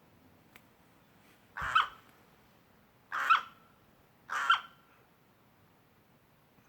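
A bird making three short, harsh cough-like sounds, roughly a second and a half apart.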